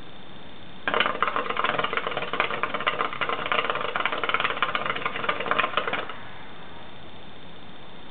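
Water bubbling in an electronic hookah's base as a long draw is pulled through the hose: a fast, continuous gurgle that starts about a second in and stops abruptly about five seconds later.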